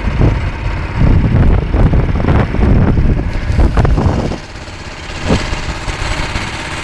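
Branco 6.5 hp single-cylinder four-stroke longtail (rabeta) boat engine running, under a loud, irregular low rumble. About four seconds in the rumble drops away and the engine's note goes on quieter and steadier.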